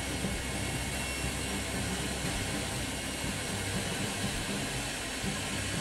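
Bell V-280 Valor tiltrotor in flight with its proprotors tilted up, a steady rush of rotor and turboshaft-engine noise over a constant low hum.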